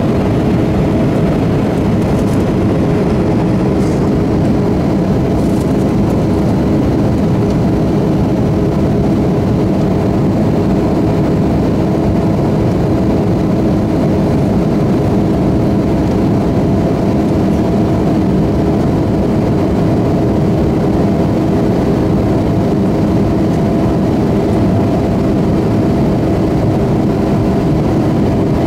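Cabin noise of an Embraer E170 in flight, heard at a window seat by the wing: a loud, steady rush of its CF34 turbofan engines and airflow, with a constant engine hum underneath.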